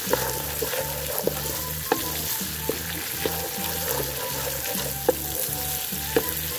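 Chopped carrots and cabbage sizzling in hot oil in a wok while a wooden spatula stirs them, the spatula clicking and scraping against the pan about once a second.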